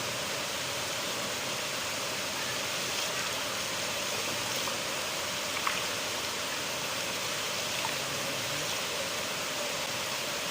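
River water flowing and rushing steadily, with a few small splashes standing out briefly.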